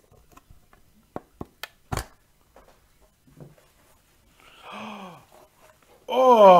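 A few sharp clicks and taps as a small cardboard box is opened by hand, the strongest a knock about two seconds in. A short murmur comes around five seconds, then a loud "Oh!" of surprise near the end.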